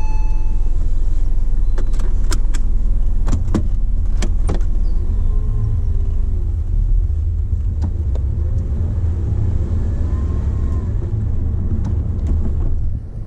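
2001 Porsche Boxster's mid-mounted flat-six running steadily as the car drives slowly, heard from the open cabin with the top down. Several sharp clicks sound in the first few seconds.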